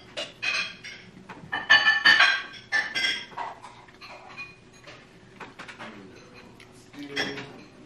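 Light clinks and rustles from handling food containers and utensils at a table. They come in short clusters over the first three seconds, go quiet, and return briefly near the end.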